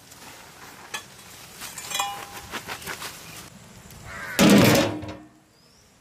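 Metal lid set down on a large metal cooking pot with a loud clatter and brief ringing about four and a half seconds in. Before it come a few lighter clinks and rustles as coriander leaves go into the soup.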